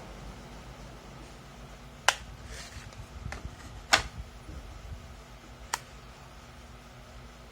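Plastic casing of a portable external hard drive clicking as it is handled and pried apart: three sharp snaps about two seconds apart, the middle one loudest, with a few softer ticks between them. A low hum runs underneath.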